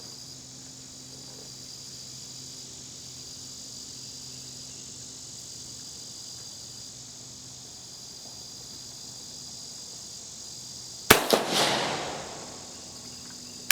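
A single shot from an Italian Vetterli 1870/87/15 rifle converted to 6.5 mm, firing a cast-bullet load, about eleven seconds in, its echo trailing off over a second or so. Before it, a steady high chirring of insects.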